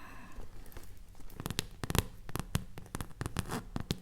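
Close-miked ASMR trigger sounds: a quick, irregular run of light clicks and taps, densest in the second half.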